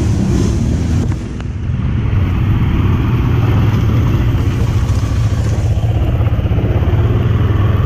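ATV engine running steadily in the creek. Its level dips briefly a little over a second in, then comes back up and holds.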